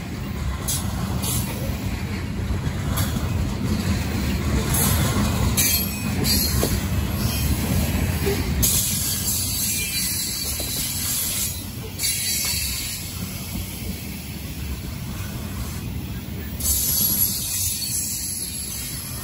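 Freight train of open-top coal cars rolling past close by: a steady low rumble of steel wheels on the rails, with stretches of higher hiss about nine seconds in and again near the end.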